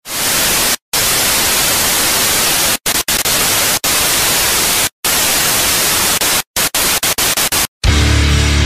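Loud white-noise static, cut off suddenly into brief silences over and over, the cuts coming quicker toward the end. Just before the end, heavy, distorted rock music comes in.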